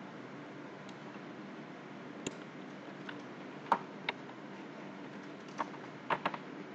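Scattered clicks of a computer keyboard and mouse, about eight in all, with a quick run of three near the end, over a faint steady hum.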